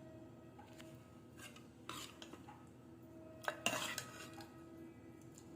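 Metal spoon clinking and scraping against a steel cooking pot or bowl a few times, loudest a little past the middle, over a steady low hum.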